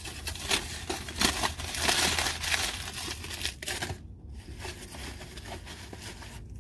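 Foil burger wrapper crinkling and rustling in the hands, densest in the first three seconds or so and sparser after, over the steady low rumble of the car cabin.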